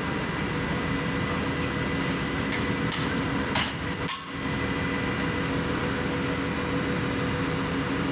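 Steady machine drone with a constant hum, broken about three and a half seconds in by a few sharp metallic clicks and a brief high squeal.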